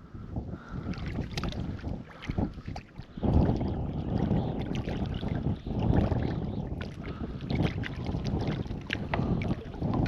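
Wind buffeting the microphone in uneven gusts, with scattered small knocks and clicks of handling on a kayak.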